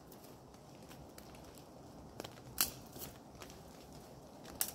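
Thin sticks snapping as firewood is broken up: two sharp cracks about two seconds apart, the second near the end, with light crackling of twigs in between.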